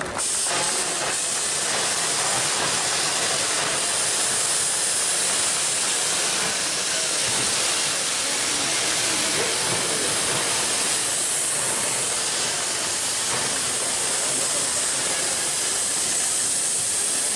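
A loud, steady hiss that starts abruptly and holds level, with no rhythm or pitch in it.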